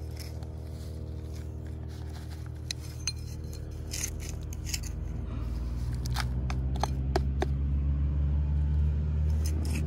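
Metal hand trowel scraping and scooping dirt into a plastic container, giving scattered small scrapes and clicks. Under it runs a steady low machine hum that grows louder a little past halfway through.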